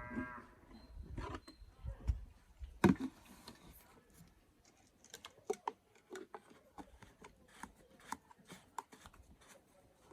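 Scattered light clicks and knocks, as of objects being handled, with one sharper knock about three seconds in. The tail of a cow's moo is heard at the very start.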